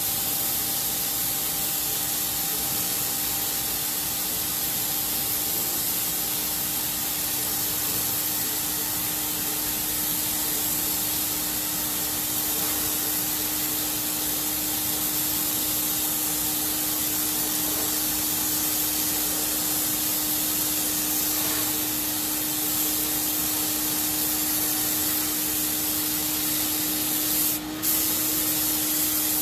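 Graco FinishPro HVLP 9.5 turbine paint sprayer running steadily: the hiss of air and atomised paint from the spray gun over a steady turbine whine. There is one brief break in the spray near the end.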